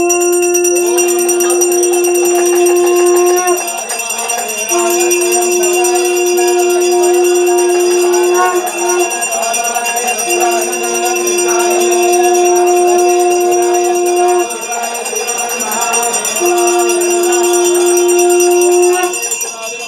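Conch blown in four long, steady blasts with short breath pauses between them, over temple bells ringing without a break, during the lamp-waving arati.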